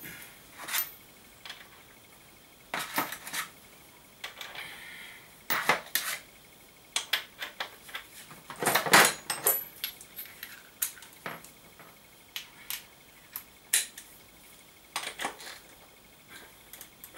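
Metal sockets and hand tools clinking and clattering as they are picked out of a socket-set case: scattered clicks, with a louder clatter about nine seconds in.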